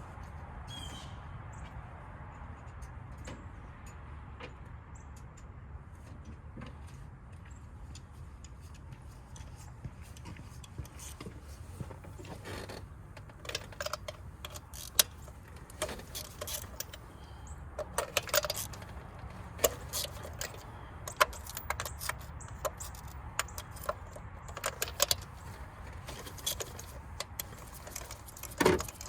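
Metal hand tools clinking and rattling while ignition coils and spark plugs are removed from a car engine, with scattered sharp clicks that start about a third of the way in and grow busier, over a steady low hum.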